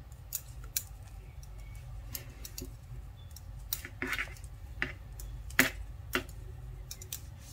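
Metal knitting needles clicking and tapping against each other at irregular intervals while stitches are purled, over a low steady hum.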